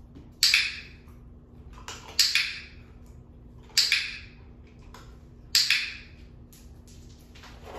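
Dog-training clicker clicked four times, roughly every one and a half to two seconds, each a sharp click with a short ring after it. Each click marks the puppy for standing with its paws on the wooden perch board, with a treat following.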